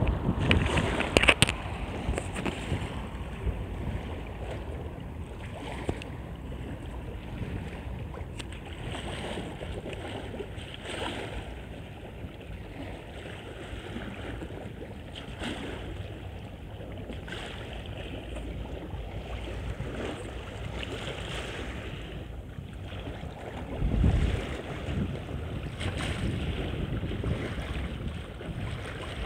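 Wind buffeting the phone's microphone over small river waves lapping against a stone embankment, with a stronger gust late on.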